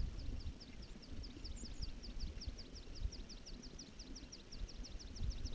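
Wind buffeting the microphone in uneven gusts, over a rapid, even series of short, high chirps, about seven a second, that keeps on without a break.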